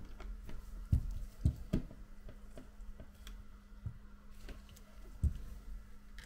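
Scattered light clicks and a few soft knocks of a smartphone and small repair tools being handled on a workbench as the phone is closed up, over a steady low hum.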